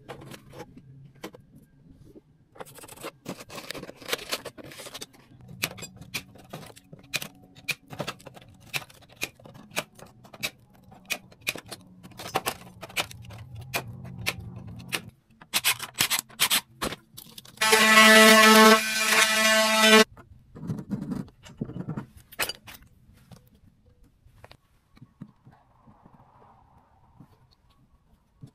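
Repeated clicks, knocks and scraping from hand work, broken about two-thirds of the way through by a loud, steady motor whir that lasts about two seconds.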